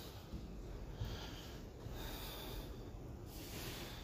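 A person breathing close to the microphone: soft hissy breaths rising and fading every second or so, over a low rumble.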